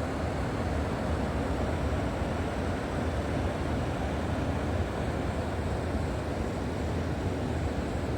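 River water flowing: a steady, even rushing, deepest and strongest in the low range.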